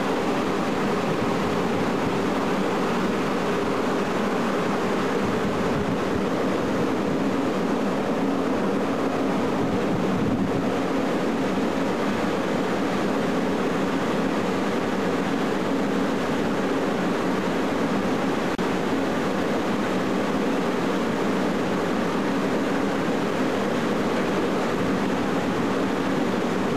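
Steady engine hum of a container ship under way, mixed with the rush of wind and water. It holds at an even level with no breaks.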